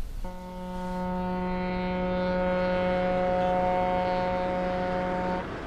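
A ship's horn sounding one long, steady blast of about five seconds, holding a single low pitch, then cutting off.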